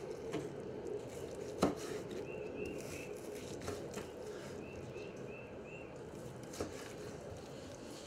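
Large kitchen knife slicing cooked pork off the bone on a wooden cutting board. The blade knocks on the board, sharply once a little over a second in and again more softly near the end.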